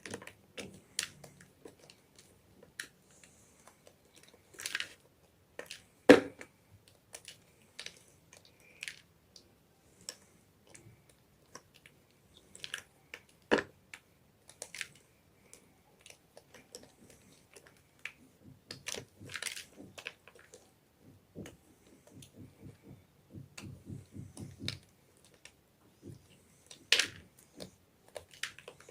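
Blocks of gym chalk being crushed and crumbled, giving irregular crisp crunches and crackles, with two sharp loud snaps about 6 and 13 seconds in.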